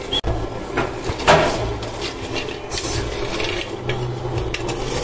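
Wooden spoon scraping and rubbing against the inside of a pot as it stirs, with a few light knocks.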